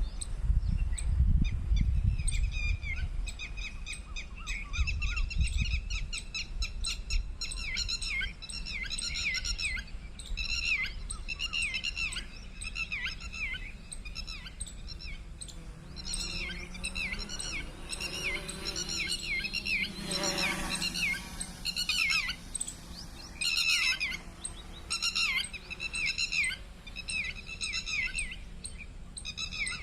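Birds chirping over and over in short, downward-sliding calls, several a second. A low rumble sounds in the first few seconds, and a steady low hum swells and fades about two-thirds of the way through.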